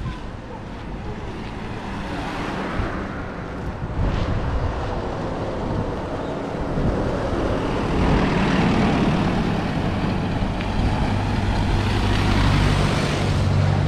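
Road traffic: a motor vehicle's engine and tyre noise grow louder from about halfway through, with a steady low engine hum over the last few seconds.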